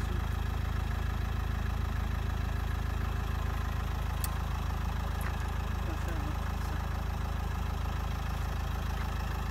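An engine idling with a steady low drone, with a faint click about four seconds in.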